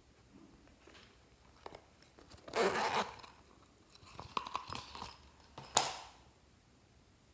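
Dry crinkling and scraping of handled materials: a crinkly scrape about two and a half seconds in, a run of small clicks and crackles, then one sharp tap near the end.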